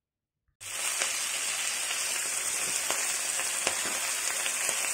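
Oil sizzling steadily in a pan as ponnaganti greens (sessile joyweed) fry with tempering seeds and garlic, with scattered small crackles and pops. It starts suddenly about half a second in.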